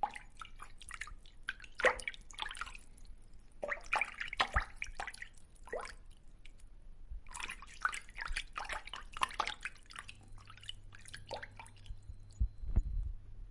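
Water dripping and plopping in irregular clusters of small splashes, with a low thud near the end.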